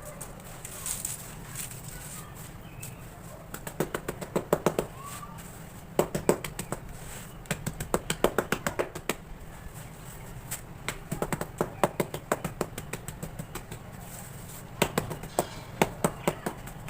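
Quick taps on hard, dry cement cakes, coming in bursts of about a dozen rapid strokes with short pauses between them, five bursts in all.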